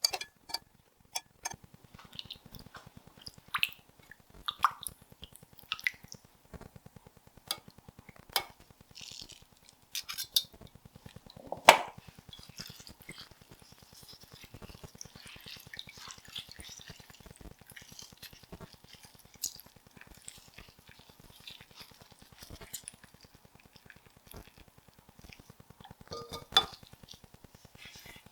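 Scattered clinks and taps of bowls and utensils during kitchen food prep, with a louder knock about twelve seconds in and another cluster of taps near the end.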